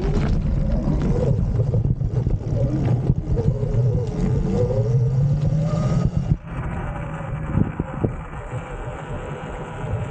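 Sur-Ron electric dirt bike riding along a dirt track: wind rushing over the microphone, with the motor's whine rising and falling as the speed changes. About six seconds in the sound changes abruptly and becomes quieter.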